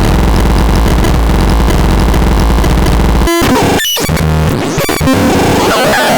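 The SAROLT's electronic sound: harsh, dense synthesizer noise over a heavy low drone, which breaks off suddenly about three seconds in and gives way to a jumble of short blips and gliding tones.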